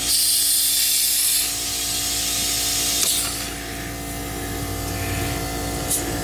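Air hissing at a car tire's valve stem as it is checked: a loud hiss for about a second and a half, a short one near three seconds in, and brief hisses near the end.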